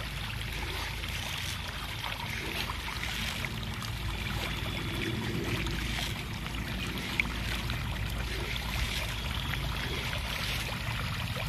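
Continuous splashing and trickling of pond water churned by a dense school of pangasius catfish thrashing at the surface.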